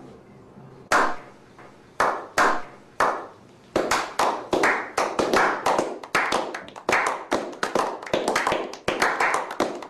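A small group clapping: a slow clap of single claps about once a second, which others join from about four seconds in, building into quicker, denser applause.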